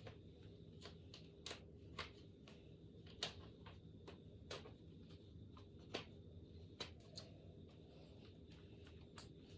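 Faint, irregular clicks and light knocks of rack pipes and connectors being handled and fitted together, over a faint steady hum.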